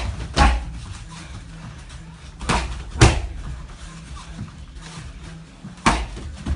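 Muay Thai strikes smacking into leather Thai pads: two sharp hits half a second apart at the start, another pair about two and a half seconds in, and a single hit near the end.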